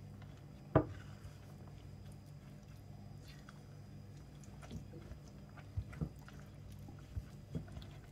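Silicone spatula stirring mascarpone, powdered sugar and chopped walnuts in a ceramic bowl: soft squishing and scraping, with one sharp knock about a second in and a few lighter knocks later.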